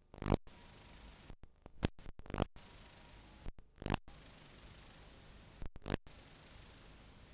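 Blank stretch of analogue videotape playing back: a steady high hiss broken every second or so by sudden dropouts and loud crackling pops.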